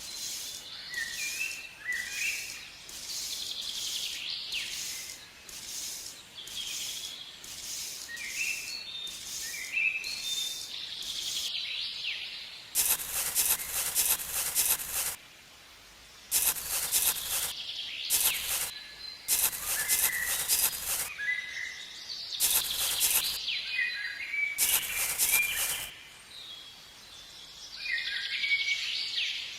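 Birds chirping in short rising and falling calls over a high hiss that pulses about twice a second. The hiss comes and goes in louder blocks that start and stop abruptly in the middle.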